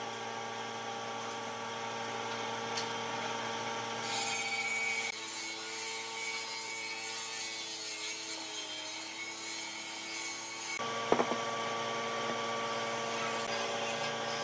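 An electric power tool working wood: a steady motor hum over a rough cutting or sanding hiss. The sound changes abruptly about four, five and eleven seconds in, and there is a sharp knock just after eleven seconds.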